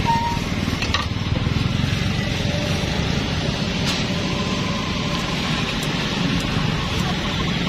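A steady low rumble of engine-like background noise, with a few faint sharp clicks over it as kitchen scissors snip meat on a wooden chopping board.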